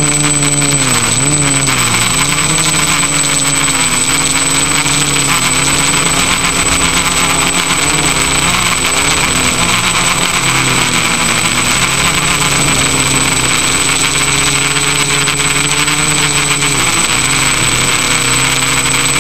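Electric motors and propellers of an FPV drone in flight, a buzzing hum whose pitch rises and falls with the throttle, dipping briefly near the end, over rushing air, with a steady high-pitched whine above it.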